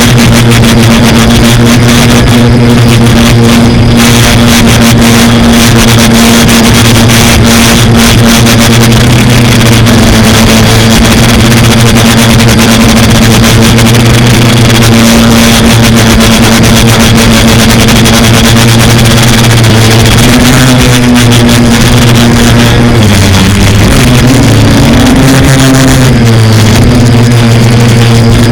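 Quadcopter motors and propellers buzzing at a steady pitch, with rushing noise over them; the pitch dips and rises several times near the end as the throttle changes.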